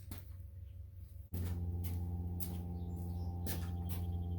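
A steady low machine hum with an even buzz above it starts abruptly about a second in, with a few light clicks over it; before that, only a quieter low hum and clicks.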